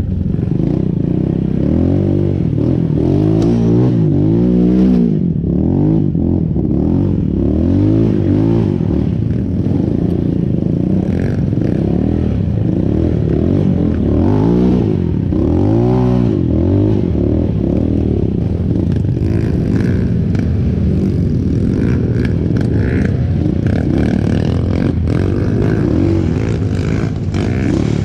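A motorcycle engine being ridden, its pitch repeatedly rising and falling as the throttle is opened and closed, with the sharpest swells a few seconds in and again about halfway. Short clicks and rattles sound over it.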